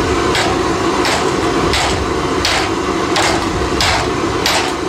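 Hammer blows on a heated steel ax head, as the smashed eye is being worked back into shape: about seven sharp strikes, evenly paced at a little over one a second. A steady hum runs underneath.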